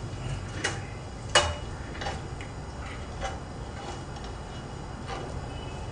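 A few light, irregularly spaced clicks and knocks from a knife and vegetables being handled on a cutting board, the sharpest about a second and a half in, over a faint steady background.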